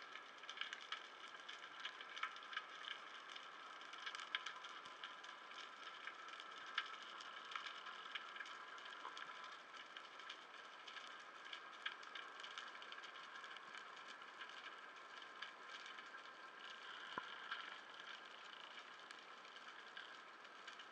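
Faint underwater ambience: a steady hiss with many small, scattered clicks and crackles.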